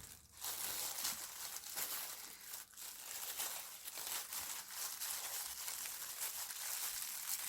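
Packaging crinkling and rustling steadily as it is handled.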